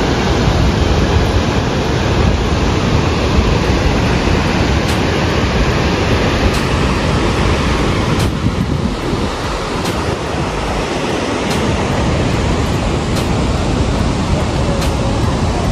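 Loud, steady rushing noise of wind buffeting the microphone, over the roar of a fast, swollen mountain river.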